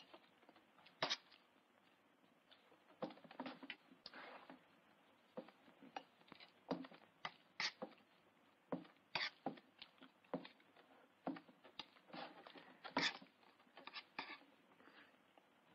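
A man wolfing down a plate of beans: a spoon clinks and scrapes against the plate, with slurping and chewing, in quick irregular bursts.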